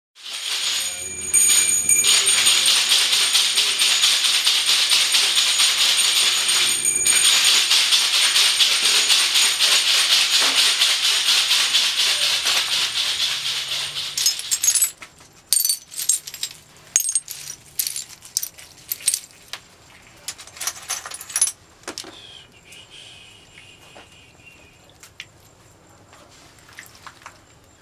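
A hand rattle shaken fast and without a break for about fourteen seconds. It then breaks into scattered separate shakes and clicks and grows faint near the end.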